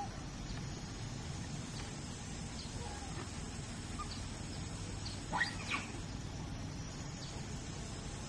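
Two short, high sweeping animal calls in quick succession about five seconds in, over a steady low background rumble.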